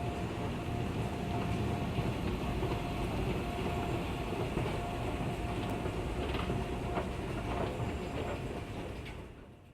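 Escalator running, heard from a rider standing on it: a steady mechanical rumble with a faint steady whine and a few light clicks. It fades out near the end.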